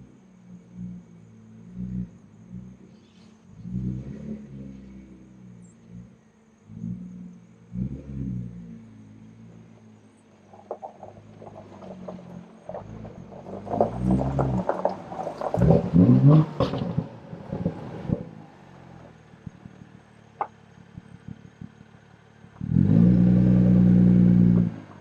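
BMW M2's turbocharged straight-six running through an M Performance exhaust, revved in short swells about every two seconds, louder and rougher in the middle, then held at a steady higher rev for about two seconds near the end.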